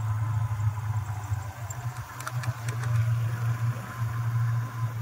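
Motorcycle engine running steadily while riding along a road, heard from the saddle, with a few light clicks a little past halfway.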